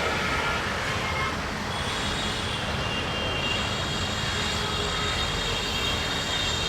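Bangladesh Railway commuter train rolling past: a steady rolling noise, with several thin high steady tones rising above it from about two seconds in.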